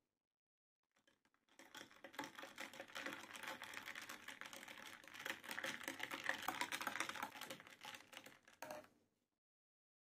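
A metal spoon stirring iced coffee in a tall glass: a quick, steady run of small clicks as the ice cubes knock against the spoon and the glass. It starts about a second and a half in and stops near the end.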